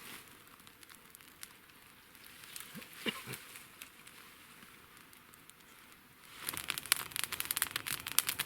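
Close crinkling and rustling near the microphone, faint and sparse at first, then breaking into a dense run of loud, sharp crackles about six seconds in.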